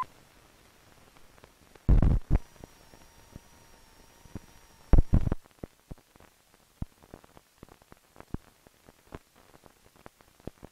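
Crackles and pops of an old film soundtrack running over blank leader, with two louder thumps about two and five seconds in and a faint steady tone between them.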